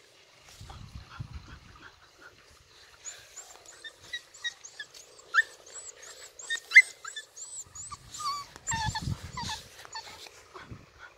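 Beagles whimpering in short, high squeaks and yelps while locked in a mating tie, the sharpest cries coming in the middle.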